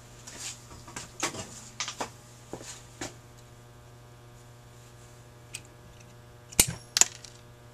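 Small metal clicks and taps of pliers and a small spring clip against a carburetor's choke linkage, with two sharp metallic clicks near the end.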